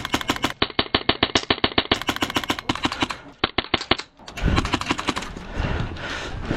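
HPA airsoft rifle with a PolarStar Kythera engine firing full-auto in long strings, about ten shots a second, for roughly four seconds. It is followed by rustling movement with a few low thumps.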